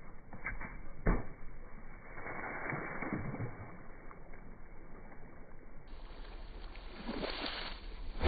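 Cardboard milk carton bursting under a car tyre with a sharp pop about a second in, followed by milk splashing and spraying out; a second stretch of splashing comes near the end.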